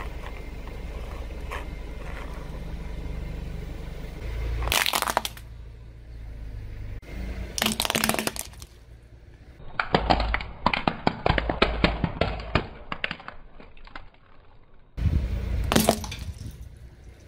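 A car tyre rolling slowly over small plastic objects on paving stones and crushing them one after another: several sharp cracks and snaps, and in the middle a run of rapid crackling, over the car's low rumble.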